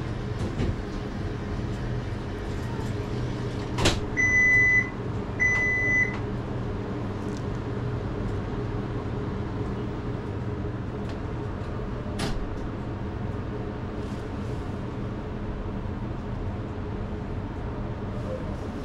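A steady low hum with a sharp click, followed by two short, high electronic beeps a little apart. Another click comes later on.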